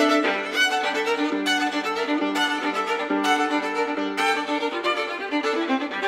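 Solo violin, bowed: a held note gives way, just after the start, to a fast run of short notes over a recurring low note.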